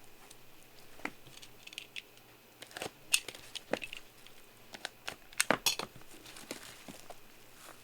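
Plastic wrapping being torn open and crinkled by hand, a run of sharp, irregular crackles and snaps that are busiest about three seconds in and again between five and six seconds.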